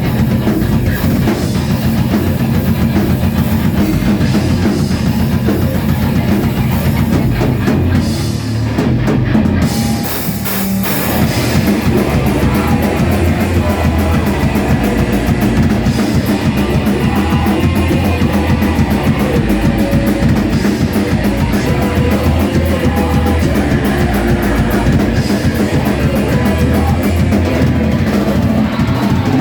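Rock band playing live, drum kit and guitar, with a short drop in the sound about eight to eleven seconds in before the full band carries on.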